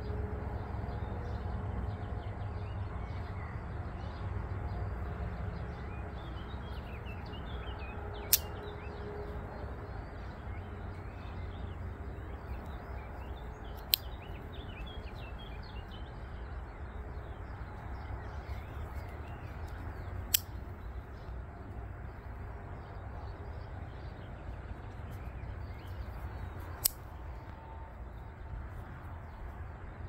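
Four sharp metallic clicks, about six seconds apart, as the tools of a 1957 Victorinox Elsener slip-joint pocket knife snap shut one by one on their backsprings. Under them run a steady low wind rumble and faint bird chirps.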